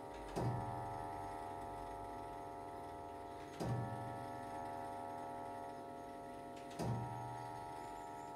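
Smith and Sons longcase clock striking the hour on a deep Harrington tubular bell. There are three slow strikes about three seconds apart, and the tubes keep ringing with many overtones between them.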